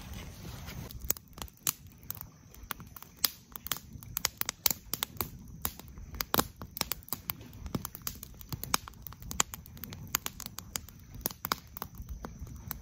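Irregular sharp crackling and snapping, several pops a second at uneven intervals, over a faint low background.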